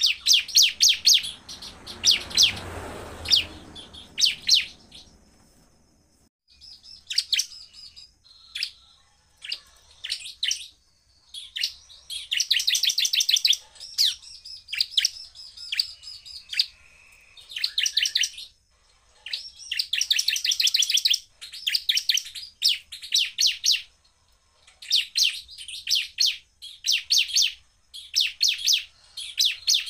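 Bar-winged prinia (ciblek) singing hard in rapid-fire bursts: runs of fast, high, sharply repeated notes lasting one to two seconds each, broken by short pauses.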